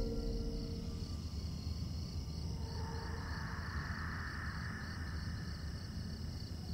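Night ambience of crickets chirping in a regular pulse over a low rumbling drone, with a soft hiss swelling in about three seconds in.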